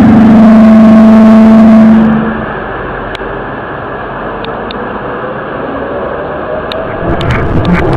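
A loud, steady pitched drone with overtones, the kind of unexplained 'strange sound from the sky' captured on a phone, holding for about two seconds before giving way to a steady low rumble. A few faint clicks come near the end.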